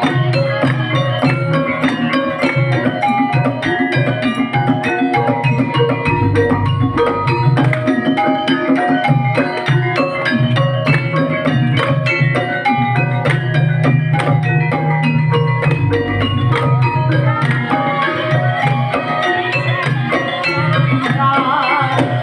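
Banyumasan gamelan music accompanying an ebeg horse-trance dance: hand-played kendang drum patterns under a busy, repeating melody of struck pitched percussion.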